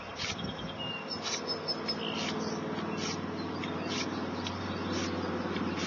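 Short scraping strokes of a hand file on a steel two-blade broadhead, about one a second: light finishing passes along the bevels to refine a toothed edge. From about a second in, a low engine hum builds up and grows louder.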